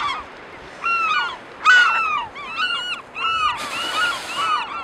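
Several gulls calling over and over, short arched cries overlapping one another. About three and a half seconds in there is a hissing rush lasting about a second.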